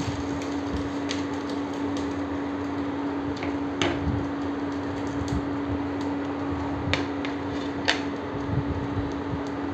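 Steady hum of an induction cooktop heating oil in a frying pan, with a few sharp clicks of a wooden spatula and utensils against the pan and bowls, about 4, 7 and 8 seconds in.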